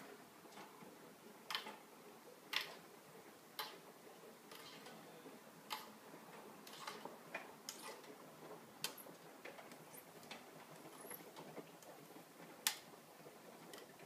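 AEG Lavamat L88489FL front-loading washing machine tumbling its drum: faint, irregular sharp clicks and knocks, roughly one a second and unevenly spaced, over a low steady running noise.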